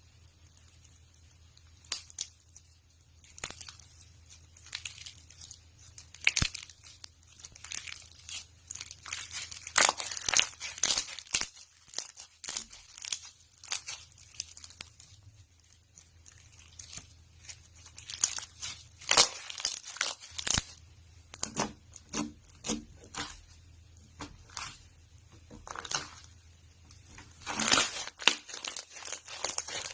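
Slime being squished and pulled apart by hand, giving irregular sticky crackles and pops.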